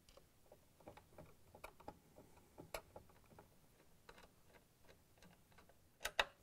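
Phillips screwdriver turning the screws that hold a KitchenAid stand mixer's top cover in place: faint, irregular small clicks and ticks of the driver on the screws, with two louder clicks close together near the end.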